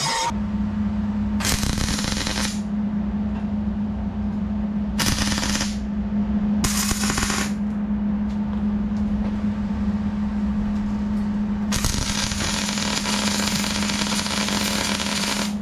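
MIG welder crackling on the steel frame rail: three short tack welds in the first eight seconds, then one longer continuous bead of about four seconds near the end, over a steady low hum.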